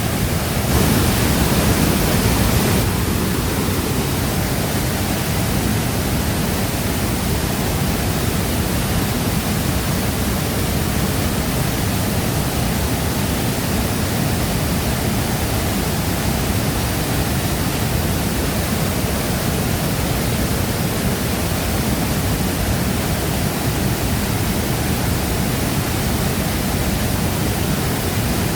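Shifen Waterfall's water falling and rushing as one steady, even wash of noise, a little louder for about two seconds near the start.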